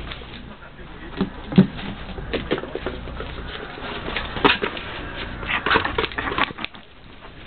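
Ferrets moving about, with irregular light patter, scratching and knocks; the loudest knock comes about one and a half seconds in.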